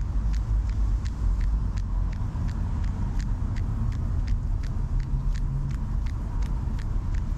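A runner's footsteps on wet pavement, evenly at about three steps a second, over a steady low rumble of city traffic.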